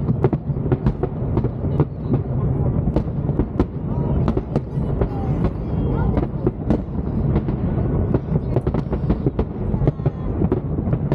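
Aerial fireworks show going off: a dense run of sharp bangs and crackles, several a second, over a continuous low rumble.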